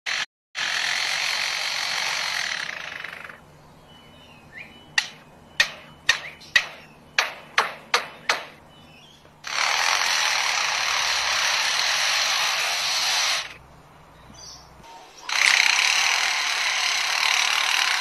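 A bird mimicking construction work: a rasping power-tool noise like a saw or drill, broken off by a run of about nine sharp knocks like hammer blows, then the tool noise twice more.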